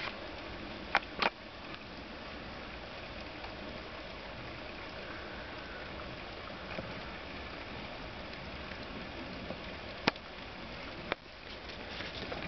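Steady rushing background noise, broken by sharp clicks: two loud ones about a second in and two more near the end, which fit the camera being handled.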